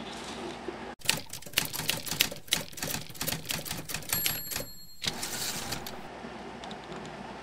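Typewriter sound effect: about four seconds of rapid, irregular key clacks that start and stop abruptly, with a short bell ding near the end like a carriage-return bell.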